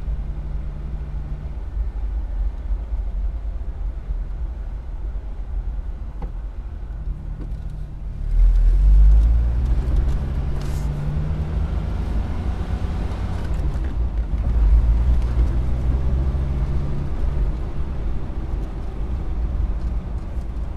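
Car engine running low and steady as if stopped, then pulling away about eight seconds in, getting louder with its pitch rising as it accelerates, then driving on. This is stop-and-go city driving.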